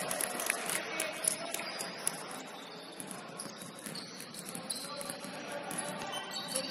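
Basketball gym sounds: sneakers squeaking on the hardwood court in many short high-pitched chirps, with scattered faint voices and ball bounces.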